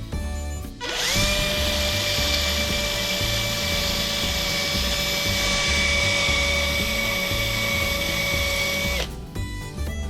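A small electric power tool, polishing the rusty knife, spins up about a second in, runs at a steady high pitch for about eight seconds, then cuts off. Background music with a beat plays throughout.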